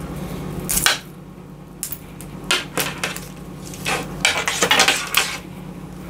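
Outer plastic jacket of an RG6 coaxial cable being cut with a utility knife and stripped off the foil and braid shield: irregular short scrapes and rustles, over a steady low hum.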